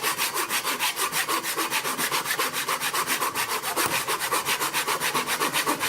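Hand saw cutting through a log of firewood in fast, even back-and-forth strokes, a steady rasp of teeth on wood.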